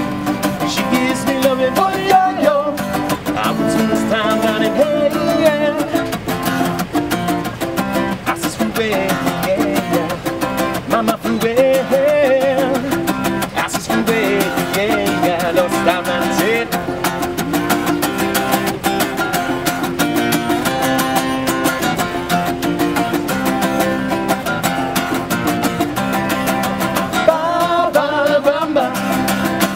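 Acoustic guitar strummed in a steady rhythm, with voices singing a melody over it in a live, unplugged band performance.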